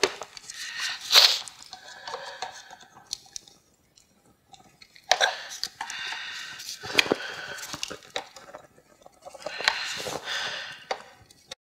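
A screwdriver prying and scraping at the clips and tabs on a plastic car bumper cover. The sound comes in irregular bursts of scraping with sharp clicks, with a near-quiet pause about four seconds in.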